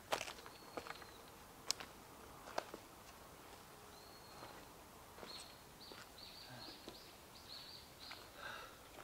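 Footsteps on a forest floor of dry twigs and needle litter, with a few sharp snaps in the first three seconds. Then a small bird gives a quick series of short, high chirps.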